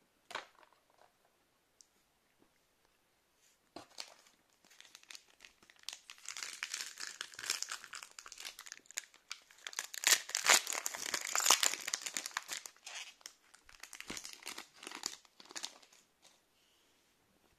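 Foil wrappers of counterfeit Pokémon booster packs being torn open and crinkled by hand. There is a dense crackling from about four seconds in, which dies away near the end.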